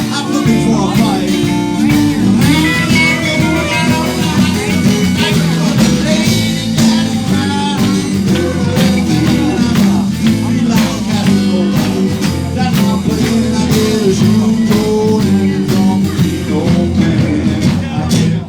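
Live band playing a blues number: guitar over bass and drums with a steady beat.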